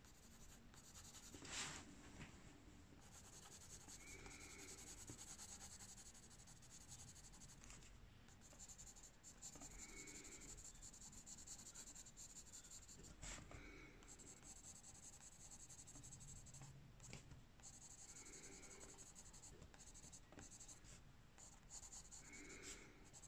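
Faint scratching of a blue coloured pencil shading on a colouring-book page, in many short strokes.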